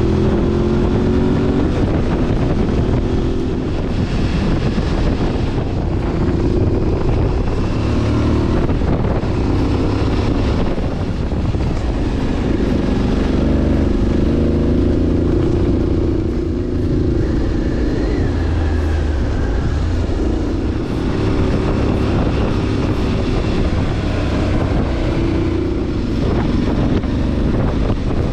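Motorcycle engine running while riding, its pitch rising and falling with the throttle, over heavy wind rumble on the microphone.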